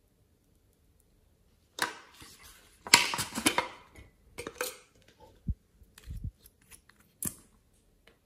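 Clicks, crackles and scraping from handling a plastic slime container and glossy slime, starting about two seconds in. The loudest burst of crackling comes about three seconds in, followed by scattered ticks and a couple of soft low thuds.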